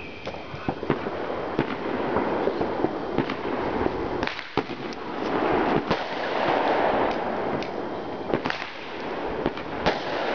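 Aerial fireworks shells bursting: a string of sharp bangs and pops at irregular intervals, over a constant dense noise of more fireworks going off.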